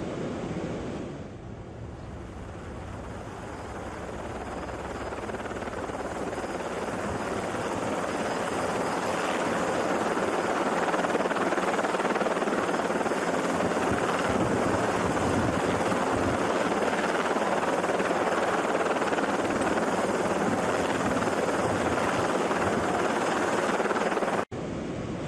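Helicopter rotor and engine noise heard from aboard, a dense steady rushing drone that grows louder over the first several seconds, holds steady, and cuts off abruptly near the end. Before it, about a second of rushing floodwater.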